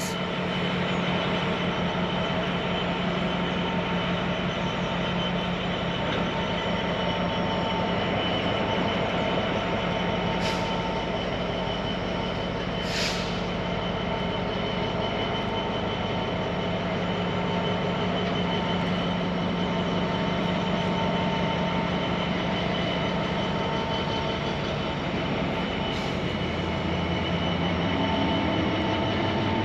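Diesel-hauled freight train rolling past, a long steady rumble of wheels on rail under a steady engine tone, with two brief sharp high sounds around the middle.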